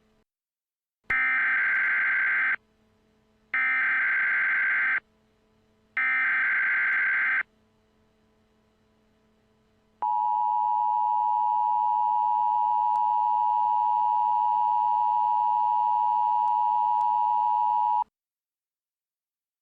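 Emergency Alert System tones: three short bursts of screeching SAME header data, about a second apart, then a steady attention tone held for about eight seconds and cut off abruptly.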